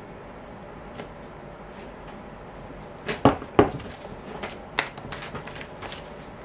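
Tarot cards being handled: two sharp knocks of the deck on the table about three seconds in, then a run of light card flicks and rustles, over a steady low room hum.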